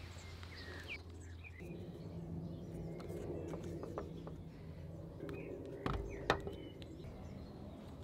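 Faint outdoor ambience with birds chirping and a low steady hum. Two short knocks about six seconds in.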